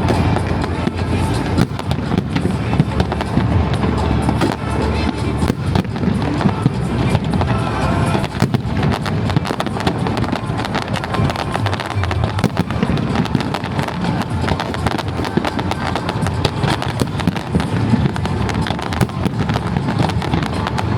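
Aerial fireworks bursting in a steady barrage of cracks and bangs, with music playing alongside.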